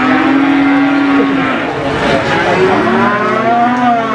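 Cattle mooing: one long, steady low moo lasting just over a second, then more lowing later on.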